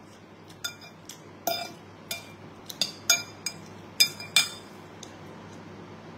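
Metal spoons clinking and scraping against a ceramic bowl of rice, about eight sharp ringing clinks over the first four and a half seconds.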